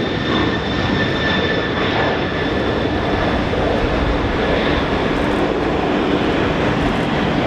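Steady jet airplane engine noise with a faint high whine, laid over a toy airplane.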